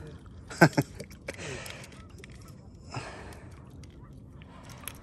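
A person breathing out heavily a few times, gasping and sighing, with two sharp knocks close together a little over half a second in.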